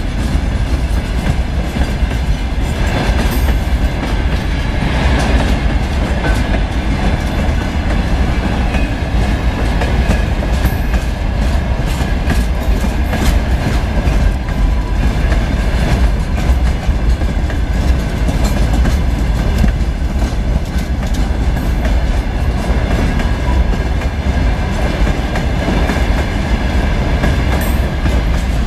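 Freight train of open gondola wagons rolling past: a steady, loud rumble of steel wheels on rail, with the clickety-clack of wheelsets over the rail joints and a thin steady high tone above.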